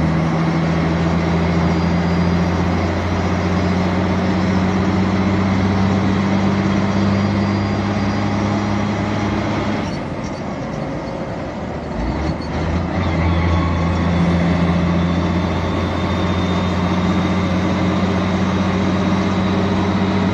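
Heavy truck's diesel engine heard from inside the cab, pulling steadily under load. About ten seconds in the engine note drops away for a couple of seconds during a gear change on the manual gearbox, then picks up again and climbs as the truck pulls in the new gear.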